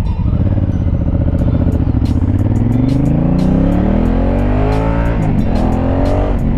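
Honda Africa Twin's 998 cc parallel-twin engine accelerating from low speed. Its pitch rises steadily for about five seconds, drops briefly as at a gear change, then rises again.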